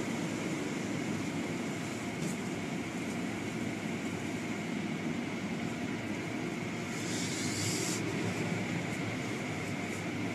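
Car wash machinery running with a steady noise and a thin high whine, with a brief hiss about seven seconds in.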